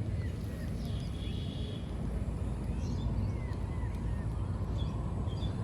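Steady low rumble of outdoor background noise, with a few short, faint bird chirps over it.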